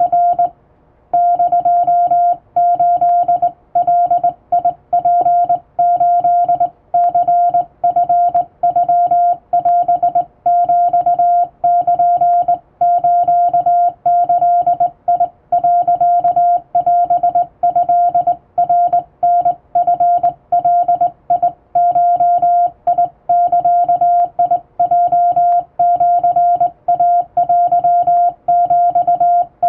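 Morse code sidetone sent by hand on a straight telegraph key: one steady beep keyed on and off in short and long elements, spelling out Japanese Wabun code, with a brief pause about a second in.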